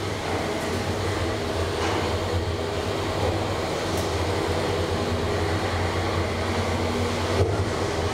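2012 SMW traction elevator car travelling down its shaft: a steady low hum and rumble of the ride, coming to a stop near the end.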